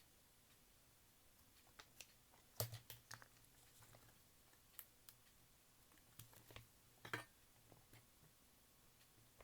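Faint, scattered light clicks and taps of small tools and parts being handled while a cassette player's motor is taken apart, with quiet room tone between them.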